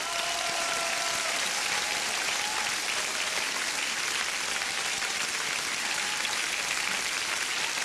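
Large arena audience applauding steadily in a dense wash of clapping, with the last notes of the dance music fading out in the first second or so.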